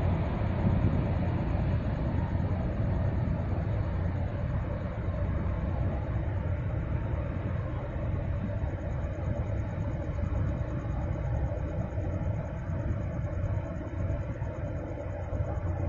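Container ship passing close by, a low steady rumble from its engine with a faint hum over it, easing off slightly toward the end.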